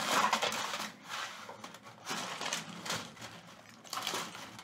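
Aluminium foil crinkling and crackling in uneven surges as it is crumpled and pressed by hand around a plastic bottle.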